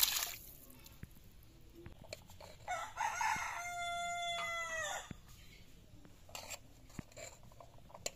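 A rooster crowing once, a long held call of a couple of seconds that drops in pitch at the end, about three seconds in. It opens with a brief loud rush of noise as thick curry is poured into a steel bowl, and a few sharp clicks of a ladle on steel dishes come later.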